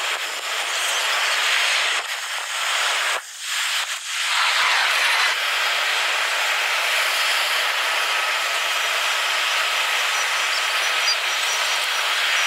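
Airliner jet engines running at high thrust, sped up four times so the roar becomes a steady high hiss. Abrupt cuts about three and four seconds in break the sound.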